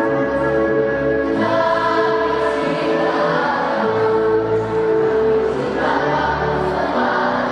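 Children's choir singing long held notes over an instrumental accompaniment with a low bass line.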